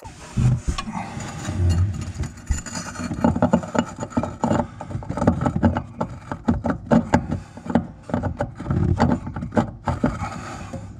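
Metal socket-type tap spanner knocking and scraping as it is pushed up onto a sink tap's back nut, with irregular clicks and a few heavier low thumps of hand and tool handling close to the microphone; the spanner turns out too small for the nut.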